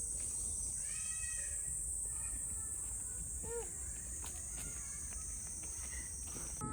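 Steady high-pitched drone of summer insects in the woods, with a few short chirps over it.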